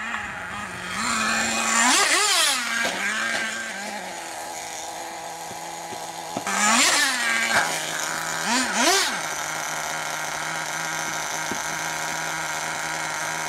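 HPI Firestorm nitro RC truck's small two-stroke glow engine idling, blipped up to high revs and back several times: around two seconds in, near seven seconds, and twice quickly just after. It then settles into a steady idle.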